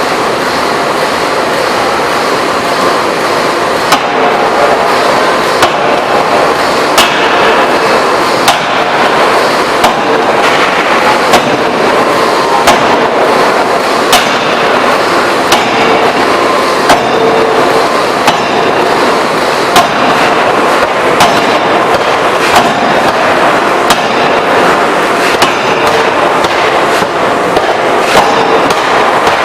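Electro-hydraulic open die forging hammer striking the workpiece in a regular run of sharp blows, about one every second and a half, starting a few seconds in, over a continuous loud mechanical noise.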